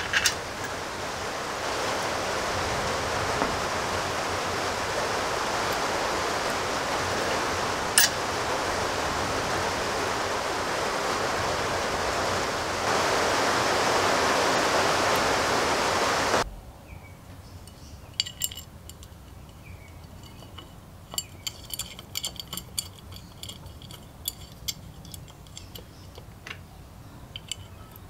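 A steady hiss for the first sixteen seconds or so, which cuts off suddenly. After it come scattered light metallic clicks and clinks of small engine parts and nuts being handled and fitted by hand on a small two-stroke engine.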